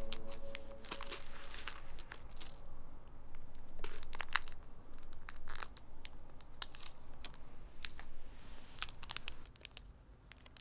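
Loose coins clinking and clattering as they are handled on a carpet, in irregular clusters of sharp clinks that die away near the end.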